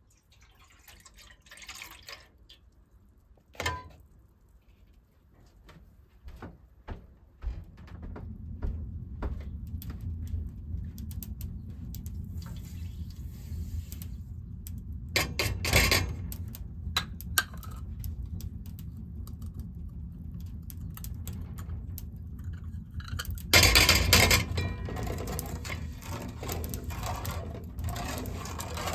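Milk poured from a jug into an aluminium pot on a wood-burning cook stove, then sugar poured in from a bowl, then a metal ladle stirring and scraping in the pot near the end. A steady low rumble runs beneath from about eight seconds in, and there is a loud noisy burst about 24 seconds in.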